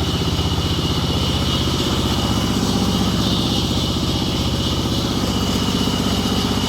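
An engine running steadily at an even speed, with a fast, regular chugging pulse and a thin, steady high whine over it.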